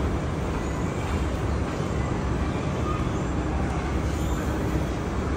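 Steady, even rumbling background noise, heaviest in the low end, with no single sound standing out.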